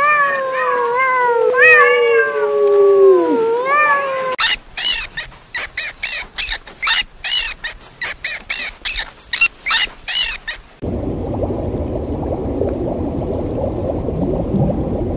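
Kittens meowing, several overlapping gliding mews for about four seconds. Then a run of short, very high squeaks from hamsters, about two a second, for some six seconds. Then a steady low rush of aquarium water.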